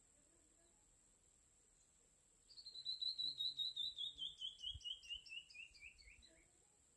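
A bird sings a quick run of about twenty short, clear notes that step steadily down in pitch and fade toward the end, starting about two and a half seconds in.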